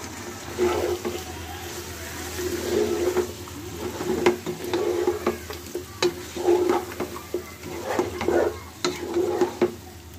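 A spatula stirring and scraping chicken pieces around a hot oiled pan, with a light sizzle of frying and sharp clicks where the spatula knocks the pan. The chicken is being fried with freshly added ground spices (turmeric, chili, coriander, cumin).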